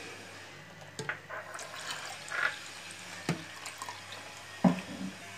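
Water splashing and dripping in a stainless-steel mixer-grinder jar of curd, with a few scattered clinks. A louder knock comes near the end.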